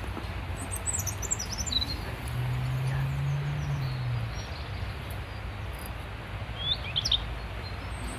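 Small songbirds chirping in short high calls, a cluster about a second in and another near the end, over a steady low rumble with a brief low hum in the middle.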